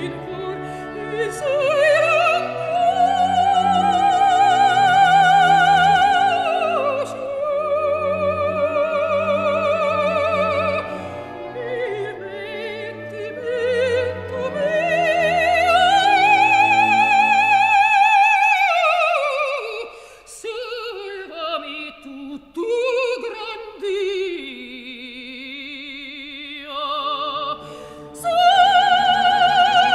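Operatic soprano singing an Italian aria with orchestral accompaniment. She holds long, high notes with wide vibrato, the line rising and falling, with a quieter, lower passage before the voice swells again near the end.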